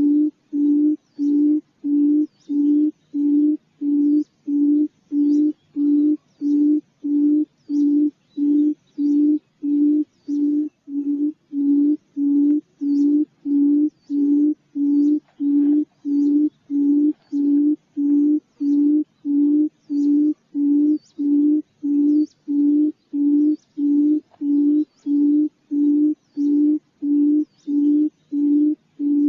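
Quail calling: a low hooting note repeated steadily about one and a half times a second, with faint high chirps above it.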